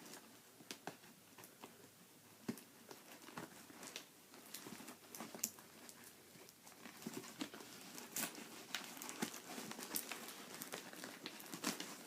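Shipping packaging being pulled and torn open by hand, with irregular crinkling and crackling that grows busier and louder in the second half.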